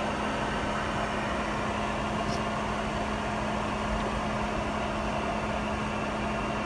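Steady cabin noise inside a Boeing 717-200 airliner taxiing before takeoff: the even hum of its two rear-mounted turbofan engines and the cabin air system, with a constant low tone underneath.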